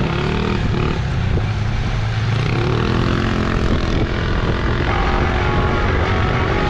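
An engine running and revving, its pitch climbing through the middle of the stretch.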